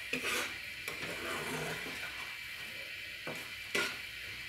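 Spatula scraping through thick spinach and paneer gravy in a frying pan as it is stirred, with a few separate scrapes.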